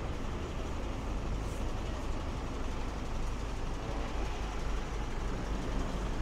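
Large diesel lorry idling at the kerb alongside, a steady low rumble, mixed with general street traffic noise.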